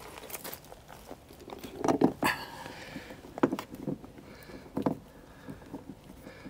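A handful of small, separate clicks and taps as a folding Torx key set from a bike kit is worked by hand on a bolt fixing a steel bracket into a van's door pillar, the metal key clinking on the bolt and knocking the plastic trim.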